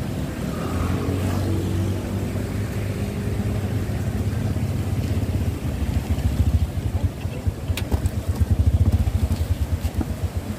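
A motorbike engine running with a low rumble that grows uneven and pulsing as it draws up close, about halfway through.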